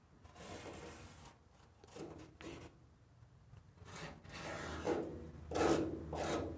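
A series of rubbing, scuffing sounds in several separate strokes, the loudest near the end.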